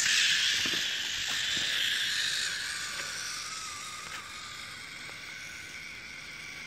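Small electric motor and gears of a one-AA Matchbox Power Truck toy whining thinly as it drives through a puddle, the pitch wavering as the load changes. There is a hiss, strongest in the first couple of seconds and then fading.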